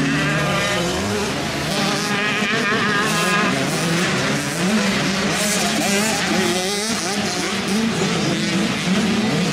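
Several 85cc motocross dirt bikes racing on the track, their engines revving up and dropping back over and over. Several bikes are heard at once at different pitches.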